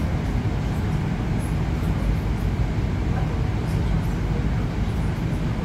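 81-765 "Moskva" metro train running, heard from inside the car: a steady, low running noise with no distinct knocks or changes.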